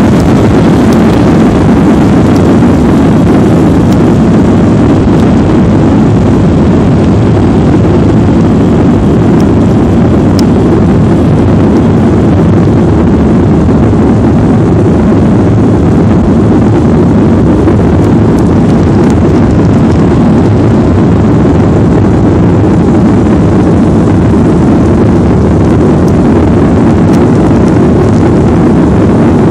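Jet airliner engines at takeoff or climb power, a loud steady rumble mixed with rushing air, heard with no change in pitch or level.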